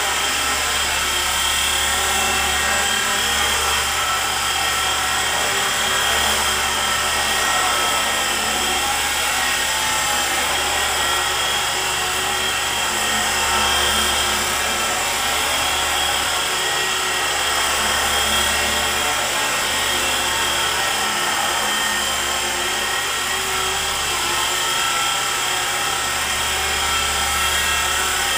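Micro electric RC helicopter (E-flite SR120) in steady indoor flight: a constant high whine from its electric motors with the whir of the main and tail rotors.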